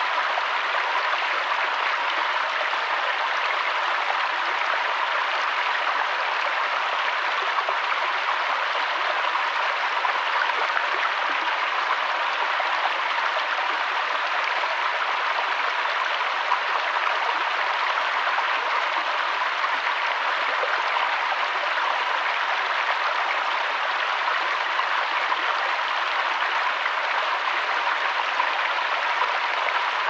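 Small rocky forest stream splashing in shallow cascades over stones and past a fallen log: a steady rush of running water with little low rumble.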